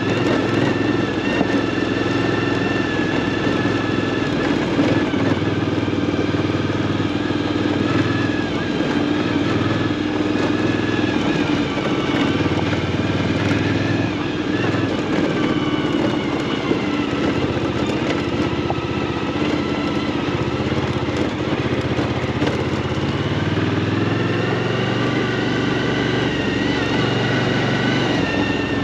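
Suzuki V-Strom motorcycle engine running steadily on the move, its pitch drifting gently up and down as speed changes.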